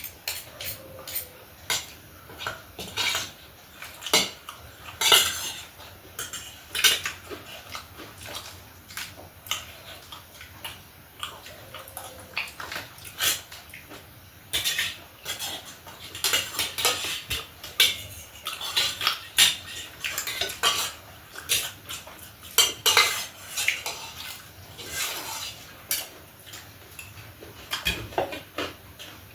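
Spoon clicking and scraping against a dish again and again at an irregular pace, as food is scooped up and eaten.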